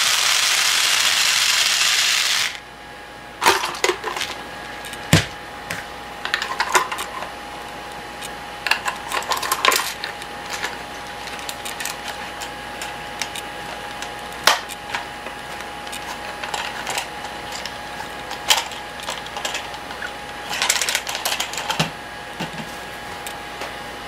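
Plastic BB pellets pouring out of an upturned PET bottle in a dense, loud rattle that stops suddenly about two and a half seconds in. After that come scattered clicks and light rattles from the plastic bottle and its loader tube being handled.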